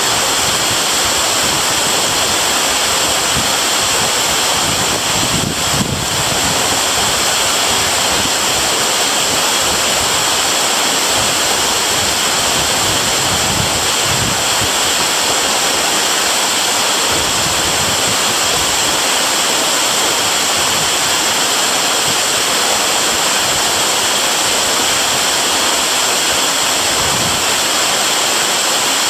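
Waterfall: a steady, loud rush of falling water, with a deep rumble underneath that swells now and then.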